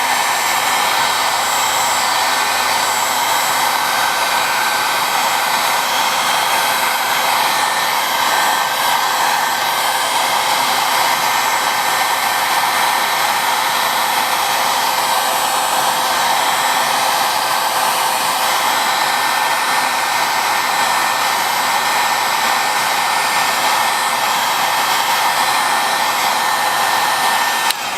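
Handheld hot-air blower running steadily at full blast with a faint motor whine, heating a phone's back glass to soften its adhesive; it cuts off at the very end.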